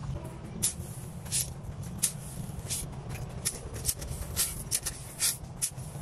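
Crushed gravel scraped and spread with a long-handled tool: irregular short rasping scrapes of loose stones, roughly one or two a second, over a low rumble.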